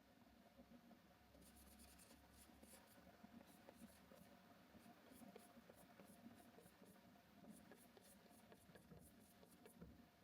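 Faint, rapid scratchy strokes of an art tool working a canvas, many short strokes in a row over a low room hum.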